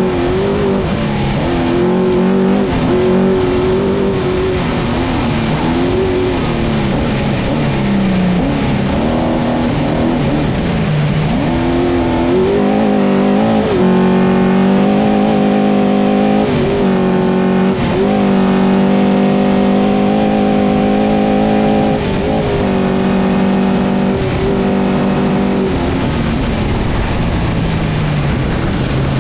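Engine of a 1000-plus-horsepower all-wheel-drive trophy truck heard from inside the cab, revving up and down. From about twelve seconds in it holds at high revs, with a few brief dips. It falls away near the end and then starts rising again.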